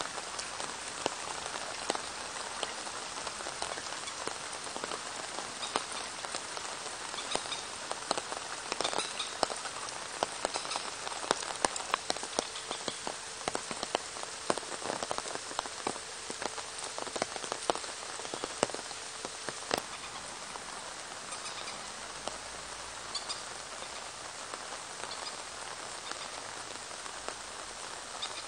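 Rain falling on a pond: a steady patter of countless drops hitting the water, with sharper, closer drips coming thickest and loudest in the middle stretch.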